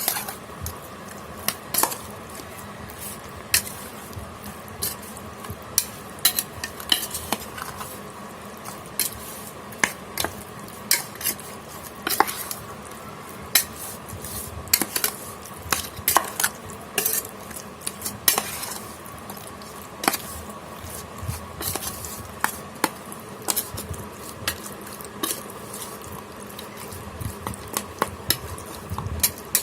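Raw chicken pieces being mixed with spice powders, ginger garlic paste and mustard oil, a utensil scraping and clinking irregularly against the vessel while the marinade is worked in.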